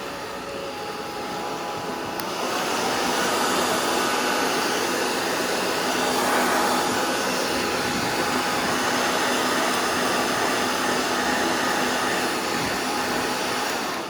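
Handheld hair dryer blowing on high heat, a steady airflow with a motor hum, held close over grip tape to soften its glue. It rises slightly about two seconds in and switches off at the end.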